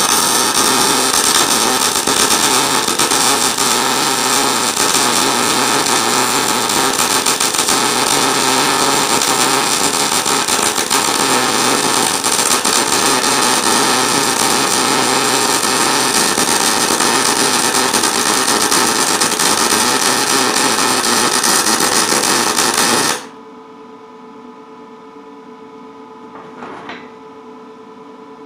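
Lincoln 210 MP MIG welder arc crackling steadily while welding with .035 wire and C25 shielding gas. The arc cuts off sharply about 23 seconds in, leaving a steady hum.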